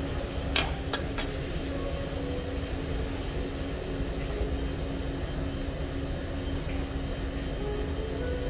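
Steady background hum with a constant low tone, broken by three quick sharp clicks, like small hard objects tapping, a little under a second in.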